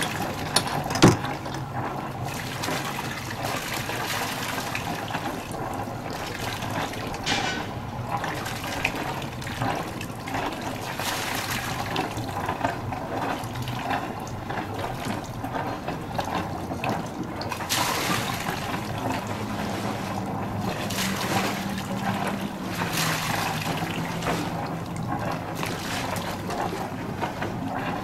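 Water sloshing and lapping against the yacht hulls and quay, steady throughout, with a sharp knock about a second in and a faint low hum partway through.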